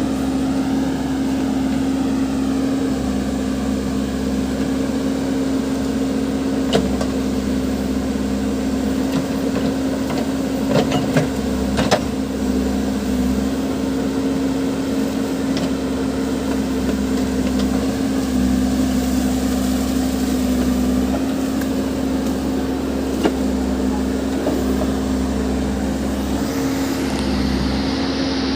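Backhoe loader's diesel engine running steadily, with a few short knocks standing out over it.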